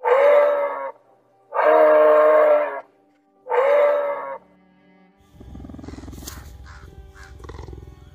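A large deer calls three times. Each call is a loud, drawn-out call about a second long, holding one pitch after a slight rise at the start. From about five seconds in, a quieter, different animal sound follows: a low pulsing rumble with short high chirps over it.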